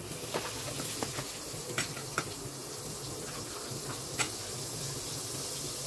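Butter sizzling steadily as it melts in a hot non-stick frying pan, with a few sharp clicks of a spoon against the pan.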